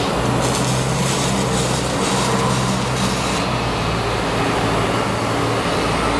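Robotic arc-welding cell running: a steady low machine hum, with a harsh high hiss from about half a second in until about three and a half seconds in.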